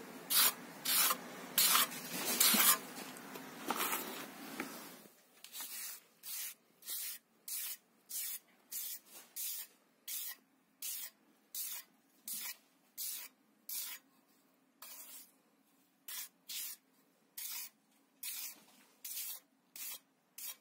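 Trowel spreading and smoothing a strip of cement-sand screed mortar, scraping in strokes about two a second. The strokes are louder for the first five seconds, then lighter and evenly spaced as the surface is smoothed.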